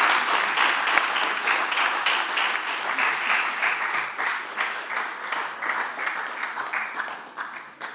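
Spectators applauding, dense rapid clapping that fades away near the end.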